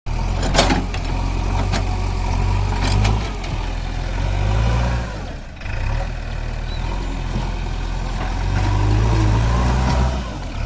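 JCB backhoe loader's diesel engine running and revving up and down as it works, with a brief drop about halfway through. A few sharp metallic knocks sound in the first three seconds.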